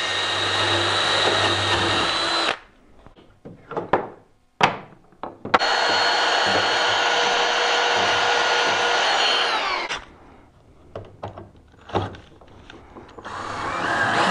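Ryobi cordless drill boring through a hole in a metal drawer slide into the drawer for about two and a half seconds, followed by a few clicks and knocks. A Ryobi EverCharge cordless hand vacuum then runs for about four and a half seconds, sucking up the drill shavings, and winds down as it stops. Near the end the drill starts again.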